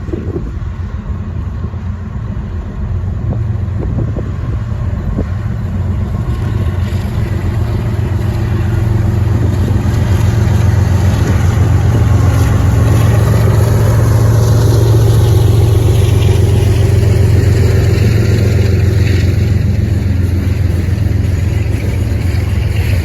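Diesel locomotives of a freight train, GE ES44ACs with V12 GEVO engines, running past with a steady low engine drone that grows louder over the first half and then holds.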